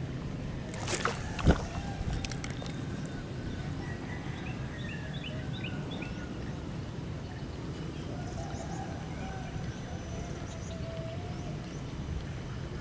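Open-air ambience: a steady low rumble, a thin steady high whine, and a short run of faint bird chirps about four to six seconds in. Two sharp knocks come about a second in.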